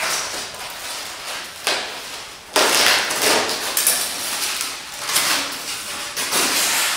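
A large foam packing sheet being handled and dragged against cardboard packaging, scraping and rustling in several swells. The loudest swell starts abruptly about two and a half seconds in.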